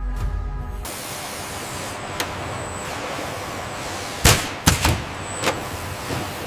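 A steady hiss, with five sharp knocks or taps spread through it; the loudest two come close together just past the middle.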